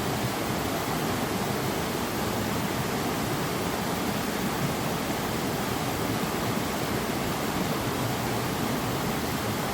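Steady rushing water, an even unbroken wash of noise with no changes in level.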